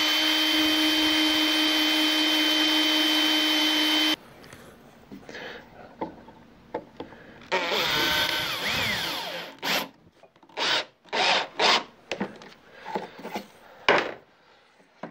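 Cordless drill driving 16 mm screws into wood: one steady run of about four seconds that stops suddenly, then a second run of about two seconds a few seconds later. After that come several short knocks and clatters as the work is handled and the drill is put down.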